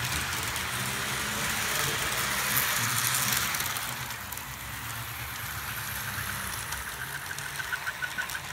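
HO scale model train running past on the track: a steady whir and rumble of the locomotive motor and wheels on the rails, loudest about three seconds in, with a quick run of light, regular clicks near the end.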